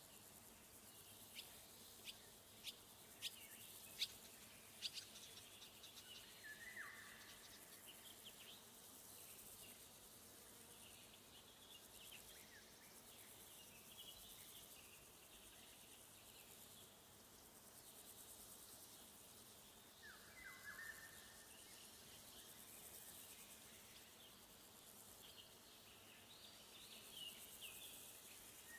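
Faint summer woodland: crickets chirring steadily high up, with scattered short bird calls. A handful of sharp clicks come in the first few seconds, and a bird gives a brief falling call twice, about a quarter of the way in and again about two-thirds through.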